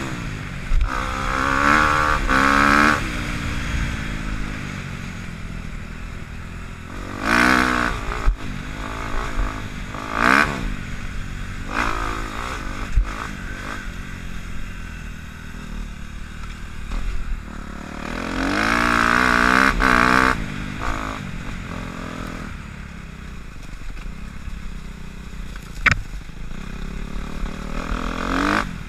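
Dirt bike engine being ridden along a trail, opening up in several rising-and-falling bursts of throttle with lower running between them. A single sharp knock comes near the end.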